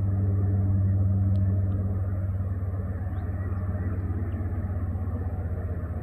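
Diesel freight locomotive engine running with a steady low drone, easing slightly after about two seconds.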